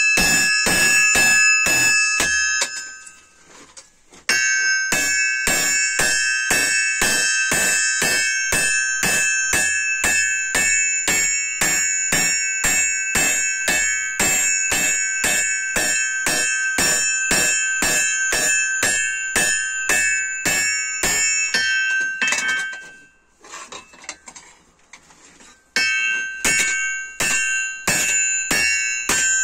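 Hand hammer striking red-hot leaf-spring steel on an anvil in a steady rhythm of about three blows a second, each blow ringing bell-like off the anvil. The hammering stops briefly about three seconds in and again for about three seconds near the end before resuming.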